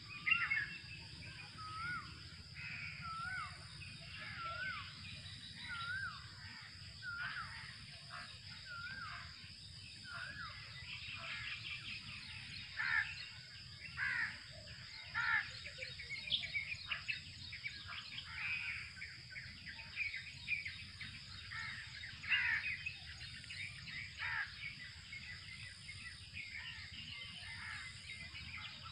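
Birds calling: a run of repeated wavy whistled notes, roughly one a second, through the first ten seconds, then louder down-slurred calls scattered through the rest. A steady high-pitched drone runs underneath.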